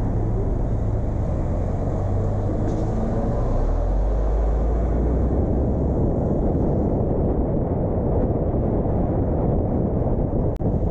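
Low rumble of a car's engine and road noise as it pulls away from an intersection and drives on. A steady hum for the first few seconds turns lower and stronger about four seconds in. The sound drops out for a split second near the end.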